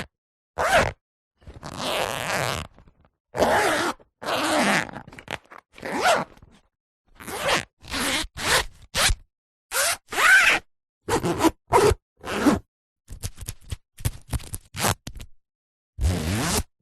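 A zipper zipped again and again in separate strokes with silent gaps between them. A few strokes are slow and run about a second, while many in the middle are short and quick.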